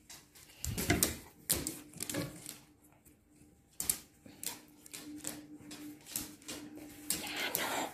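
Irregular clicks and scuffs of an Akita dog's and a Ragdoll cat's paws and claws on a hard tiled floor as they play-fight, several a second with short pauses.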